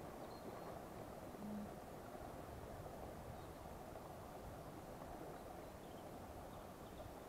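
Steady low rush of a high, fast-running river, with a few faint bird chirps and one brief low hoot about a second and a half in.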